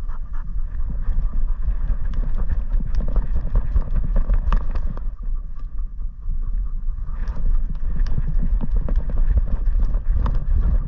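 Footfalls and jolts of a running Weimaraner, heard through a camera strapped to its back: a quick uneven rhythm of paw strikes and knocks over a constant low rumble, softer for a couple of seconds in the middle as it goes through grass.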